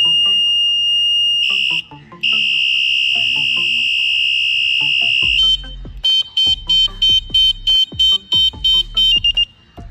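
Electronic horn of a USB-rechargeable bicycle light-and-horn combo sounding loudly through its tones. A long steady high beep breaks off briefly about two seconds in and resumes, then just past halfway it switches to a fast pulsing beep, about four pulses a second, as the horn is switched to another sound profile.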